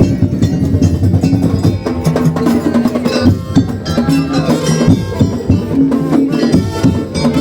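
Madurese daul ensemble playing: quick drum and knocking percussion under a melody of held notes.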